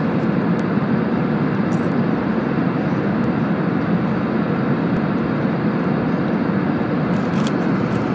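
Steady droning noise inside a passenger jet's cabin in flight, from the engines and the air rushing past the fuselage, even and unchanging in level.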